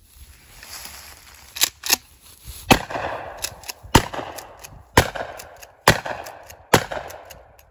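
Mossberg Shockwave pump-action shotgun fired from the hip, about half a dozen shots roughly a second apart, each with a short echo.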